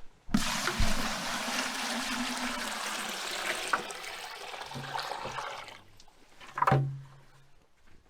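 Water poured from a pot into the pigs' waterer: a steady splashing pour lasting about five and a half seconds, then stopping. A short low sound follows about a second later.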